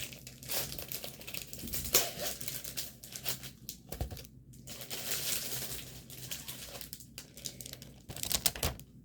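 Plastic packaging of a diamond painting kit being handled and crinkling on and off, loudest about two seconds in and again near the end.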